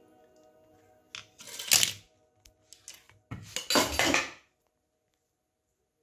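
Hard plastic switch board being handled and set down, giving a few short clattering bursts, the loudest about two seconds in and again at about three and a half to four seconds, over faint background music; the sound cuts to dead silence about four and a half seconds in.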